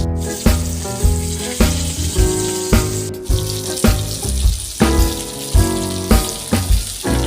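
Background music with a steady beat, a little under two beats a second, over a steady hiss underneath.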